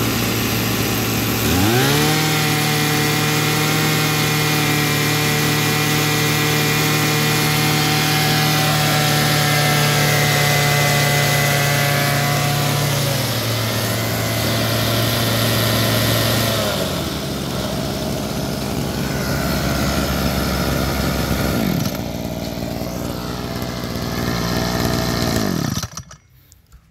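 Tanaka brush cutter's small two-stroke engine revving up about a second and a half in and held at high speed on the throttle, then dropping to a lower, uneven speed, and cutting off suddenly near the end.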